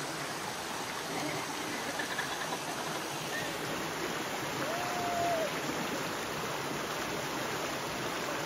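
Small rocky mountain stream rushing and splashing over rocks, a steady wash of running water.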